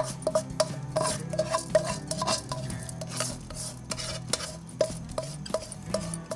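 A spoon stirring rice in water in a large pot, knocking and clinking against the pot's side several times a second.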